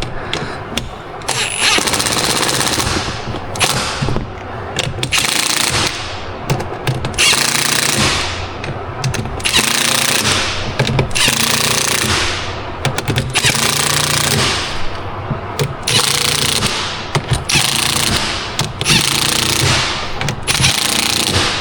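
Impact wrench hammering bolts down in about ten rattling bursts of a second or so each, run on a low torque setting so the bolts don't twist off.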